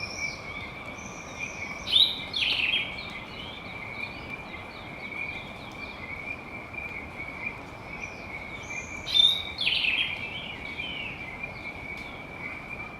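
Tropical forest birds calling over a steady high drone, with many short chirps and two louder calls, one about 2 seconds in and one about 9 seconds in.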